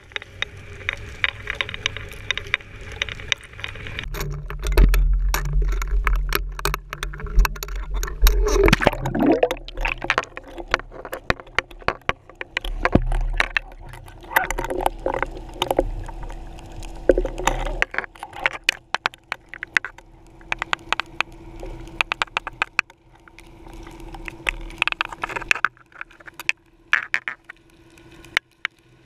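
Underwater sound picked up by a GoPro in its housing on a weighted fishing rig: rapid, irregular clicks and knocks as the rig shifts and bumps. Underneath is a low rumble, heaviest in the first third, and a faint steady hum.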